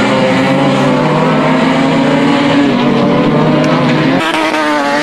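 Rear-wheel-drive dirt rod banger racing cars with their engines revving hard, the engine note rising and falling. The sound changes abruptly a little after four seconds in.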